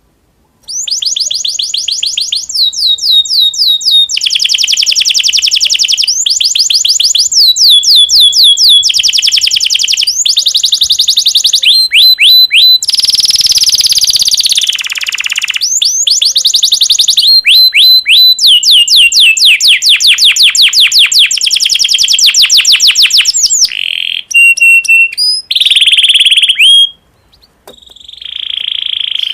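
Domestic canary singing its song: rapid trills and rolls of fast repeated high notes, each phrase lasting a second or two before switching to the next, with one harsher buzzy phrase midway. The song comes from a canary in breeding condition, the kind of song used to set other canaries singing.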